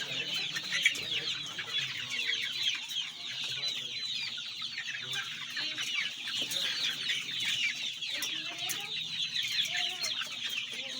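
A flock of young Golden Misri chickens peeping and chirping without pause as they feed, with occasional sharp clicks of pecking.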